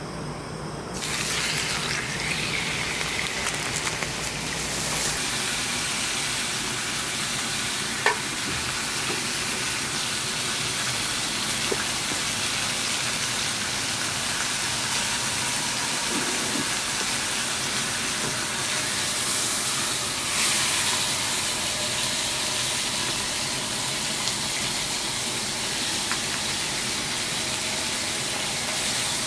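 Food sizzling in a hot pan, a steady hiss that starts suddenly about a second in, with one sharp click about eight seconds in.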